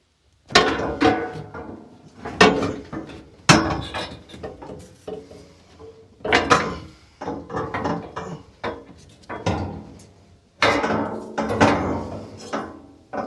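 Boards of a nailed timber shipping crate being knocked apart and handled: about a dozen hard, irregular wooden knocks and clatters, some ringing briefly.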